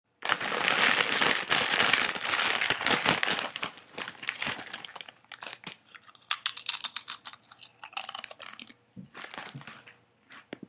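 Eating potato chips: dense, crackly crinkling for about the first four seconds, then a run of separate short crunches as the chips are chewed.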